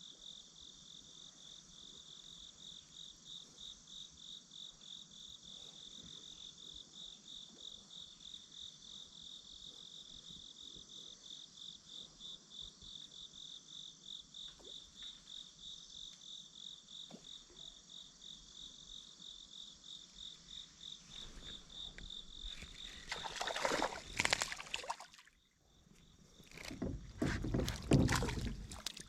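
Insects chirping steadily in a high pulsing trill, a few pulses a second. Near the end, loud rushing noise bursts in twice and covers it.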